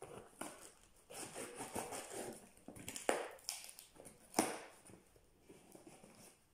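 Cardboard parcel box being handled and opened by hand: a run of scrapes, crinkles and knocks, with two sharper knocks about three and four and a half seconds in.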